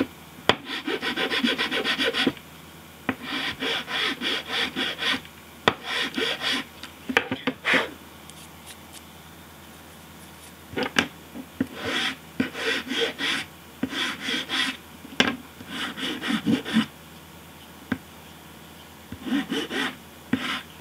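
A light hand file rasping along the edge of a paper knife blade in quick back-and-forth strokes. The strokes come in about six runs of a couple of seconds each, with short pauses between them.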